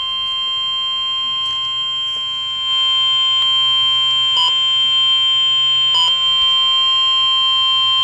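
NOAA Weather Radio warning alarm tone (the 1050 Hz alert tone), one steady unbroken high tone played through a Midland weather alert radio's speaker. It signals that a warning message follows. It gets a little louder about three seconds in.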